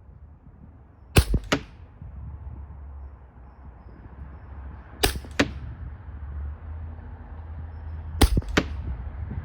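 Hatsan Invader .25 air rifle fired three times, about three and a half seconds apart. Each shot is a sharp crack followed about a third of a second later by a second, weaker crack.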